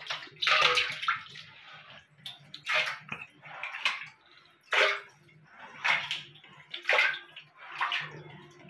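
Hands splashing and scooping shallow muddy water on the floor of a plastic water tank, in short splashes roughly once a second.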